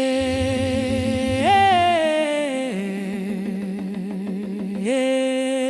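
A voice singing long wordless held notes in a ponto, an Umbanda devotional song to Oxum. The voice slides up to a higher note, glides back down to a lower one, then rises again near the end.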